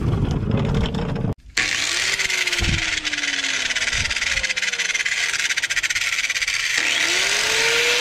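Handheld cut-off wheel tool cutting into a rusted exhaust bracket: a loud steady hiss with a whining tone that slowly falls, then glides back up near the end. It starts about a second and a half in, after a brief stretch of low rumbling handling noise.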